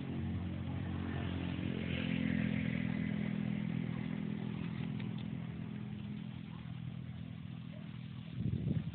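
An engine running at a steady pitch, loudest a couple of seconds in and then slowly fading. A short thump near the end.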